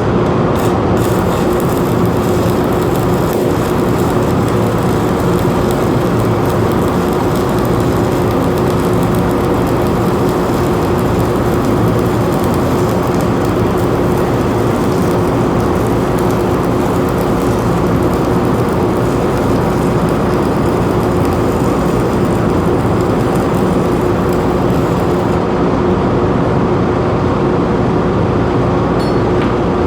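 Steady, loud machine noise with a constant hum.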